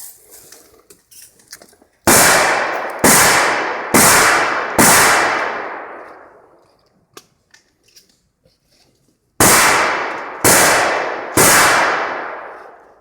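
Seven shots from a Revo 12-gauge pump-action shotgun: four about a second apart, a pause of several seconds, then three more at the same pace, each shot ringing out and dying away over a second or so.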